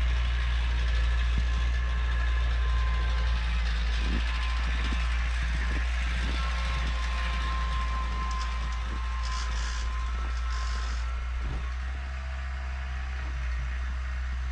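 Four-wheeler (ATV) engine running at a steady idle, with a few light knocks and clicks of handling around it.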